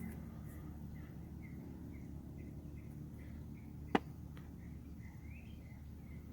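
A bird chirping faintly and repeatedly, about four short chirps a second. A single sharp click sounds a little past halfway through.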